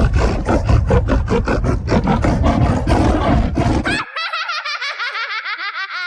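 Two evil-laugh sound effects one after the other. The first is a rapid pulsing laugh with a heavy low end, about five beats a second, that cuts off abruptly about four seconds in. The second is a high-pitched warbling cackle that slides down in pitch as it trails off.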